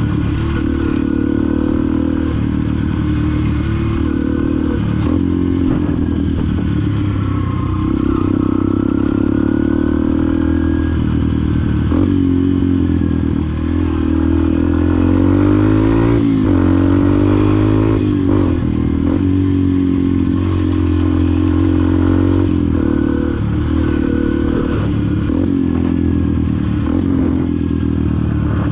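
Yamaha XTZ 125's single-cylinder four-stroke engine running through a Fortuna F1 mini trioval aftermarket exhaust. It is ridden with the throttle opening and closing, so the engine note climbs and drops again several times.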